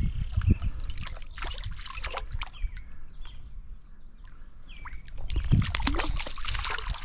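Stream water splashing and sloshing as a hooked brook trout is brought in at the surface, with a few short bird chirps.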